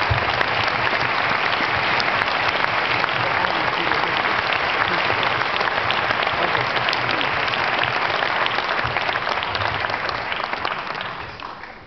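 Cinema audience applauding, a dense steady clapping that dies away over the last couple of seconds.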